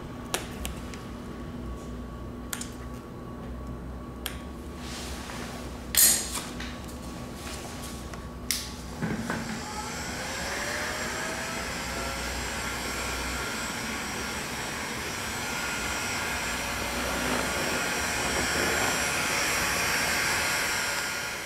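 Light clicks and knocks from handling the vinyl decal and blade on the plastic fairing, with one sharp knock about six seconds in. About nine seconds in an electric blower motor starts, a steady whooshing whir that grows louder toward the end.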